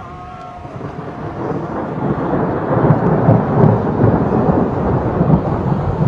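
Thunder rolling: a deep, loud rumble that builds over the first few seconds, stays strong for a few seconds, then cuts off abruptly near the end.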